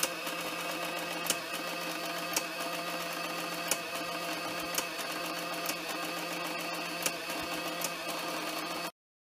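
Sharp XE-A102 cash register's built-in ink-roller impact printer running steadily as it prints out the programmed settings, with a light click every second or so. The sound cuts off suddenly near the end.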